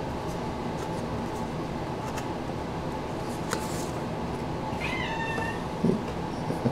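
Baseball cards being handled and laid down over a torn wax-paper pack, with faint paper clicks over a steady background hum. About five seconds in there is a short high-pitched sound that bends in pitch, and near the end two brief low knocks, the loudest sounds here.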